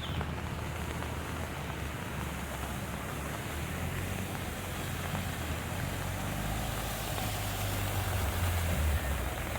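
A motor vehicle's engine running with a low rumble that grows louder toward the end, over a steady rushing noise.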